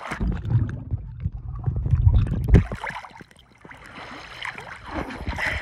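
Pool water sloshing and rushing over a phone's microphone as the phone goes under the surface: a heavy low rumble for about two and a half seconds, then a quieter, muffled underwater wash with small clicks.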